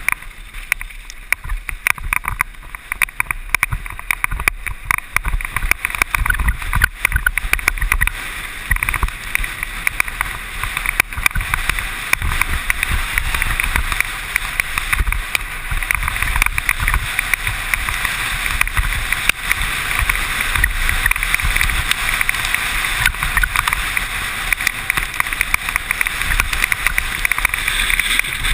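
Mountain bike descending a rough trail at speed. Wind is buffeting the microphone, and the bike gives off steady rattling, with frequent sharp knocks over the ground.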